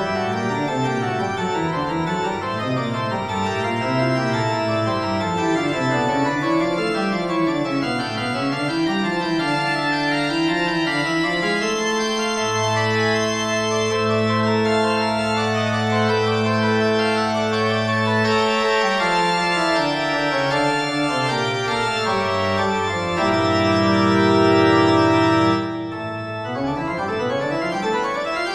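Slow organ music: shifting chord notes, then long held chords, with a rising glide of tones near the end.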